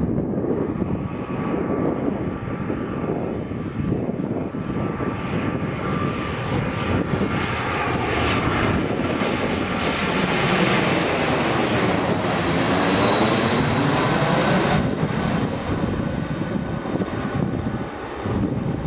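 Airbus A320-200 jet airliner on final approach, flying low overhead with its gear down: the engine roar swells to its loudest about ten to fourteen seconds in as it passes over, with a sweeping, phasing tone and a brief falling whine at the peak, then eases as it moves away.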